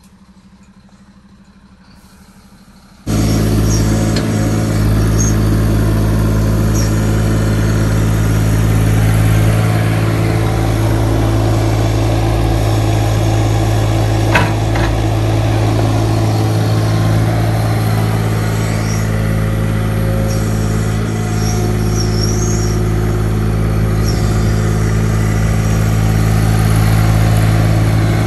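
Heavy diesel machine engine running steadily at a constant speed. It comes in abruptly about three seconds in, after a quiet start, with one sharp click near the middle.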